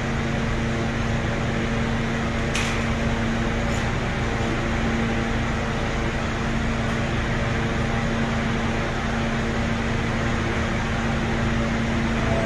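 R160 subway train standing at the platform with its doors open, its air-conditioning and onboard equipment humming steadily with a few constant tones. A single sharp click comes about two and a half seconds in.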